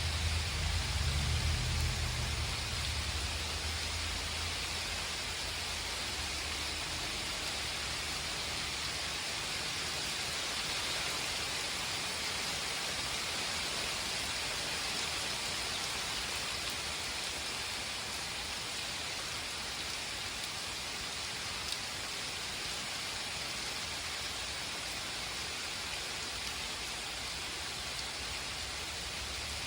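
Steady rain from a thunderstorm falling and splashing on surfaces, with a low rumble fading away over the first few seconds.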